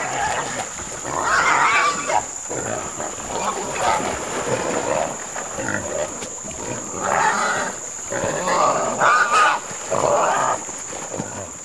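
A hunting dog and a wild hog fighting, with about six loud outbursts of growling and squealing in irregular succession as the dog catches the bayed hog.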